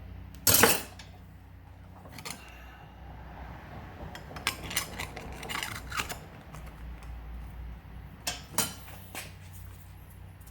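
Metal tools and a cut piece of aluminium being handled and set down on a work surface: scattered clinks and knocks, the loudest a sharp knock about half a second in.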